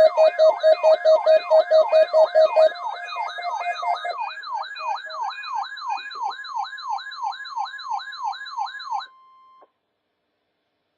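Weather radio receiver's alert siren sounding for an EAS Required Weekly Test: a wailing sweep falling in pitch about three times a second, over pulsing beeps and a steady high tone. It gets quieter a little under three seconds in and cuts off about nine seconds in.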